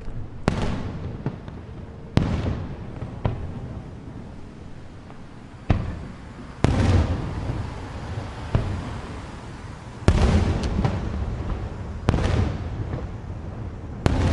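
Aerial firework shells bursting overhead: about ten sharp booms, irregularly spaced, each trailing off in a long rolling echo.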